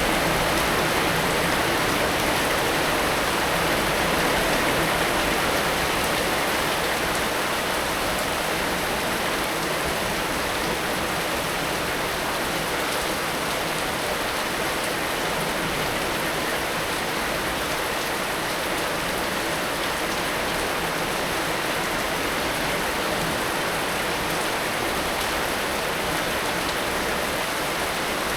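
Heavy rain falling steadily, an even hiss of dense drops.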